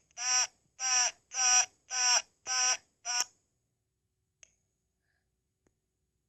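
A recording played back through a small device's speaker: the same short pitched, call-like tone repeated about twice a second, six times, cutting off suddenly just after three seconds in, followed by a faint click.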